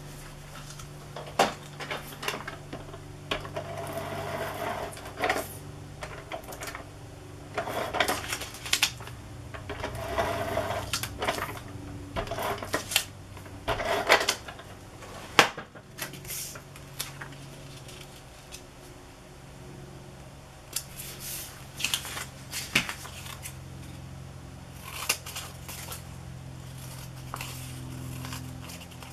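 Paper crafting by hand: paper being handled and shifted on a cutting mat, with light clicks and taps and several short rasping pulls of tape from a roll dispenser, over a steady low hum.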